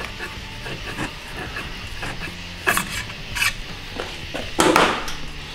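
Metal hand tools handled on a transmission valve body as a hand reamer and its jig are worked free of a freshly reamed bore: light clicks and three short hissing scrapes, the loudest near the end, over a steady low hum.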